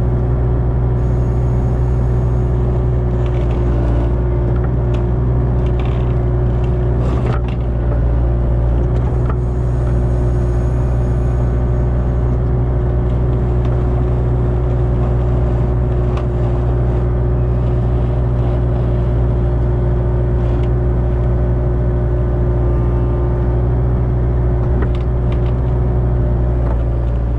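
Kubota KX057-4 excavator's diesel engine running at a steady speed while the tiltrotator bucket works the topsoil, with a few faint knocks along the way.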